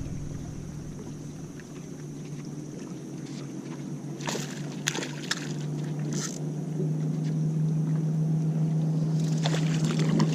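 A steady low hum from a bass boat's motor, rising slightly in pitch and growing louder, with several short splashes of water as a small bass is reeled in on a drop-shot rig.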